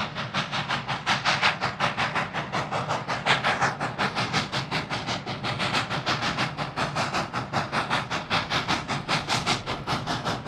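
Narrow-gauge K-36 2-8-2 steam locomotive approaching under power, its exhaust chuffing in an even beat of about four a second with steam hiss.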